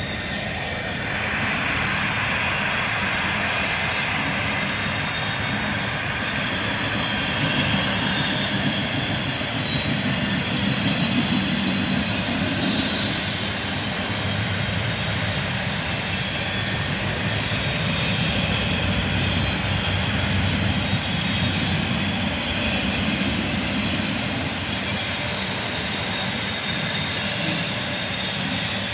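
Intermodal freight train's container cars rolling past: a steady rumble and rush of steel wheels on the rails that holds an even level throughout.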